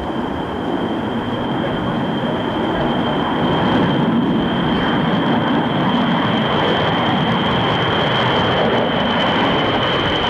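B-52 bomber's jet engines passing over: a steady rushing rumble that grows louder over the first few seconds and then holds, with a thin high whine running through it.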